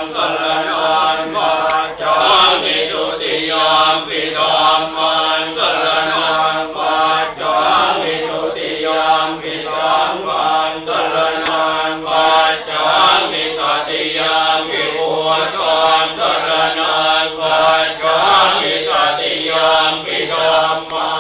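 Group of Theravada Buddhist monks chanting together in unison: a steady, rhythmic recitation held on a nearly level pitch.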